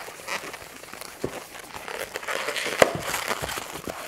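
Inflated latex modelling balloon rubbing and crinkling under the fingers as it is twisted into a small loop twist, with irregular short scratchy squeaks and one sharper click about three seconds in.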